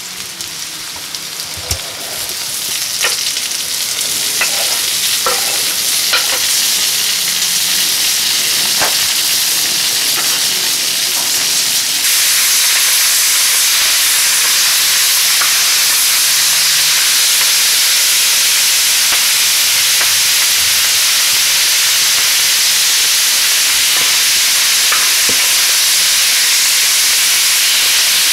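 Bisteca chops and chopped vegetables sizzling and frying in a plough-disc pan while being stirred with a wooden spatula. A few sharp clicks sound in the first ten seconds. The sizzle grows louder over the first few seconds and steps up again about twelve seconds in.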